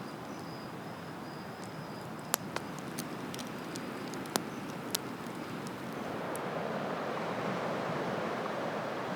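Steady outdoor rushing noise, like wind in trees or distant surf, that grows louder about six seconds in, with a few sharp clicks around the middle and a thin high insect trill that fades out early.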